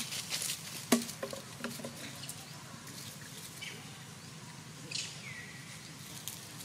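Soft rustling and scattered clicks from a baby macaque nursing on its mother, with a sharp click about a second in and a brief thin call about five seconds in.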